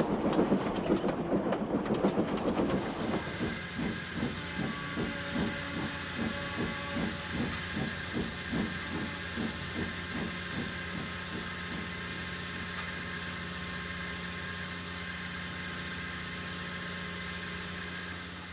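Steam locomotive chuffing, the exhaust beats slowing and fading as it draws to a stand, then a steady hiss of steam while it stands. The sound drops away abruptly near the end.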